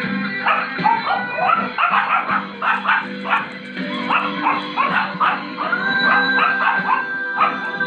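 Several dogs yipping and whining in quick, overlapping short cries: the eager whining of dogs waiting to be fed. Background music plays underneath.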